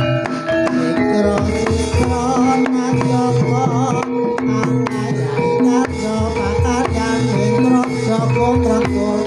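Javanese gamelan-style accompaniment for a buto gedruk dance: drums and struck metal instruments keep a steady beat under sustained ringing notes, with a wavering singing voice coming in about two seconds in and again around six seconds.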